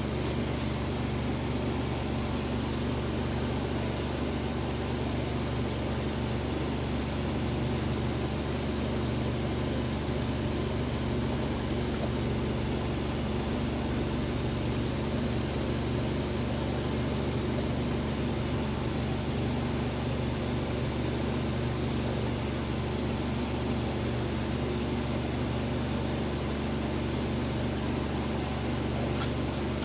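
A steady low hum under an even hiss, with no distinct events.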